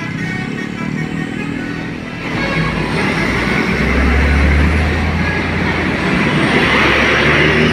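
Tour bus driving past close by. Its engine and road noise build from about two seconds in, with the deep engine rumble strongest around four to five seconds in, and the noise stays loud to the end.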